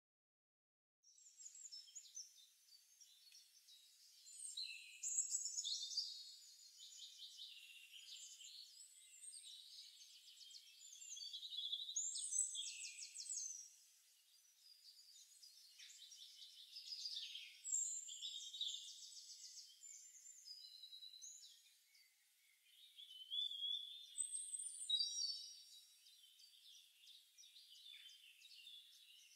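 Recorded forest birdsong: many high chirps and quick trills from several birds, starting about a second in.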